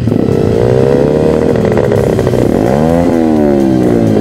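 125 cc pit bike engine revving under the throttle: its pitch rises and eases off in the first two seconds, then sweeps up sharply near three seconds and falls away again.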